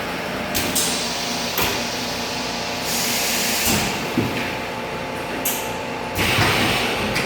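Gas-flush packaging machine running: a steady motor hum with short pneumatic hisses and clacks that come again every second or so as it cycles.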